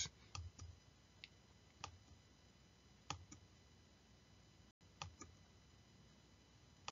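Near silence broken by about five faint, short clicks, a second or so apart.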